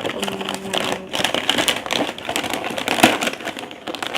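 Gift wrapping being torn and crinkled open by hand: a dense run of rapid crackling and rustling.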